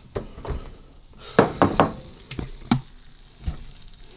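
A run of sharp knocks and clacks of hard things being handled in a kitchen, about eight in all, with three in quick succession about a second and a half in.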